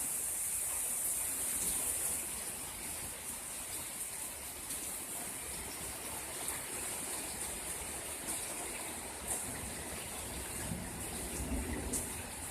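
Heavy rain pouring down: a steady, dense hiss with scattered sharper drop impacts, and a brief low rumble about eleven seconds in.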